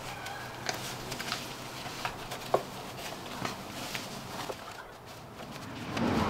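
Scattered small clicks and taps of gloved hands and a tool working at a car battery terminal, with one sharper clink about two and a half seconds in and a brief rustle near the end.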